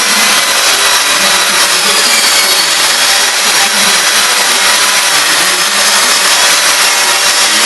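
A power tool running steadily at full speed, a loud even whir with a faint steady whine in it.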